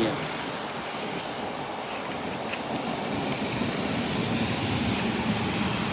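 Steady wind and road noise while riding in the rain: an even rushing hiss with no distinct engine note or sudden sounds.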